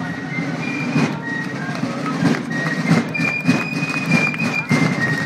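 Pipe band playing: bagpipes sounding a steady drone under a melody of held notes, with drum beats marking the march.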